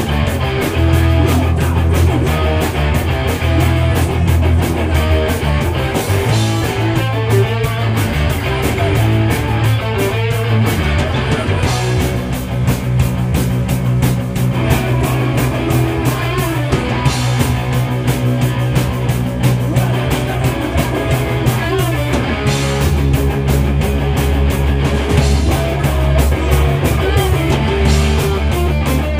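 Heavy rock band playing live: distorted electric guitars hold low, heavy chords over fast, continuous drumming and cymbal hits.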